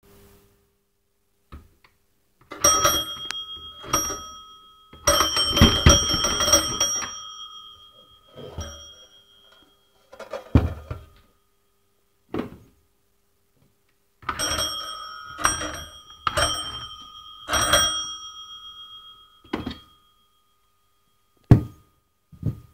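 Bell of a 1930s Ericsson bakelite telephone ringing in irregular bursts of rapid clapper strikes, each burst trailing off in a ring, with a few dull knocks between them.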